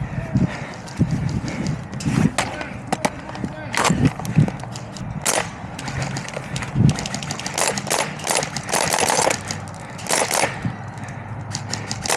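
Airsoft guns firing during a game: scattered sharp snaps and short runs of shots, coming thicker from about the middle on.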